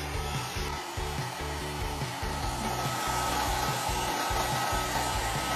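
A steady blower-like rushing noise with a thin, even whine, like a hair dryer or heat gun running, over background music.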